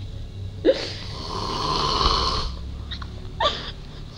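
A man snoring: one long snore from just under a second in until past two seconds, with a short sharp sound at its start and another brief one near the end.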